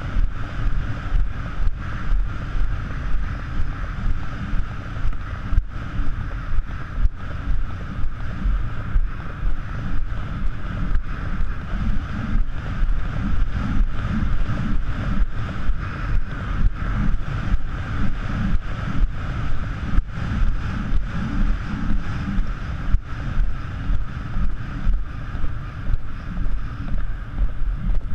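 A vehicle driving fast along a sand beach, its engine and tyres running steadily, with wind buffeting the microphone.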